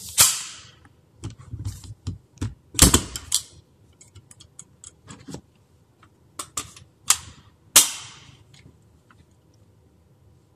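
A black carbine being handled and readied: a run of sharp mechanical clicks and clacks, several with a short ringing tail, bunched in a quick flurry in the first few seconds and again as a few single clacks after about six seconds.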